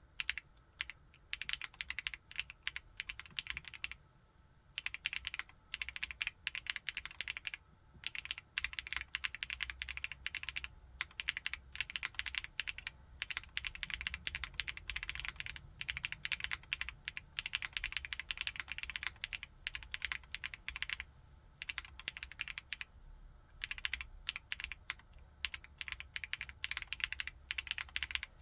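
Typing on a Chilkey ND TKL aluminium-case mechanical keyboard with Kailh Blue Lotus switches: fast runs of keystrokes broken by several short pauses.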